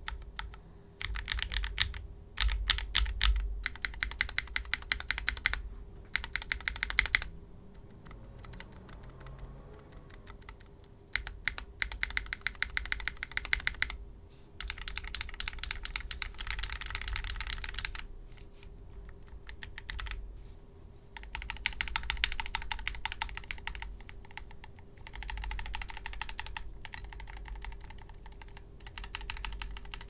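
Typing on a Kbdfans Anode aluminium keyboard with lubed KTT Wine Red linear switches, an aluminium plate and o-ring gasket mounting: runs of rapid keystroke clicks lasting a few seconds each, with short pauses between them.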